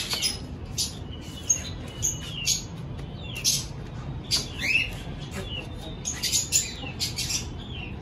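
Pet parrots in an aviary, budgies and cockatiels, chirping and calling: many short, high chirps with a few rising and falling whistled notes, one clear sweep about halfway through.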